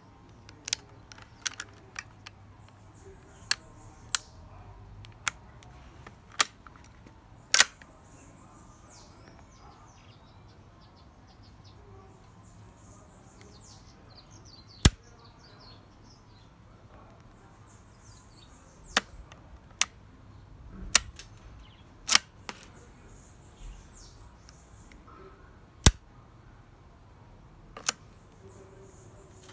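Irregular sharp metallic clicks and clacks of a .22 LR rifle's magazine and bolt being handled, with a cartridge fed from the magazine into the receiver. Birds chirp in the background.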